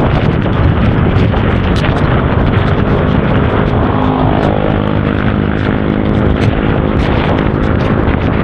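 Heavy wind buffeting the action-camera microphone on a moving scooter. From about three and a half seconds in, a steady engine hum rises under the wind and fades again near the end.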